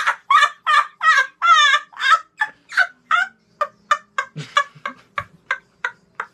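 A boy laughing hysterically in a rapid run of loud ha-ha bursts, about three a second, which thin out into shorter, breathier pulses toward the end.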